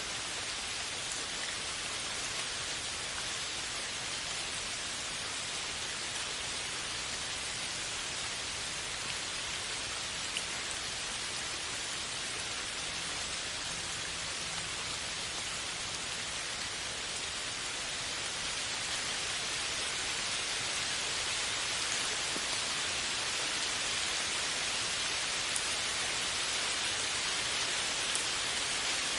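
Steady rain falling, an even hiss of many drops with a few single louder drops standing out. It grows slightly louder a little past the middle.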